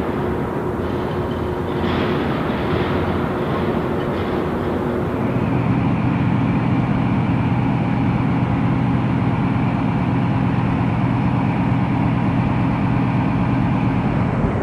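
A steady mechanical drone with a low hum running under it; its pitch and tone change about five seconds in, then it runs on evenly.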